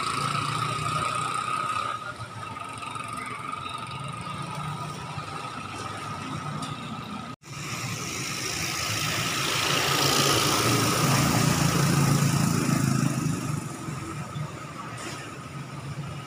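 Street traffic: motor vehicle engines running, with a louder swell about ten seconds in as a vehicle passes close. The sound cuts out briefly about seven seconds in.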